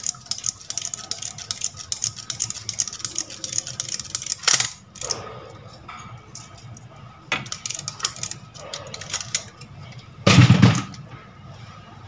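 Copper wire being hand-wound onto a vacuum cleaner motor armature, with rapid clicking and rustling from the wire and the paper slot insulation for the first few seconds, then sparser ticks. A short knock about halfway through and a louder thump near the end.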